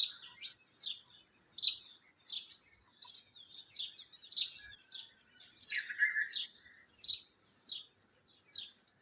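Birds chirping: many short, quick descending chirps, repeated irregularly, with a few lower warbling notes about two seconds in and again around six seconds in, over a continuous high-pitched drone.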